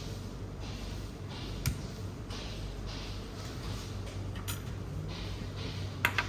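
Typing on a Monsgeek M1W mechanical keyboard: keystrokes at an uneven pace, with a few sharper clacks, the loudest pair near the end, over a low steady hum.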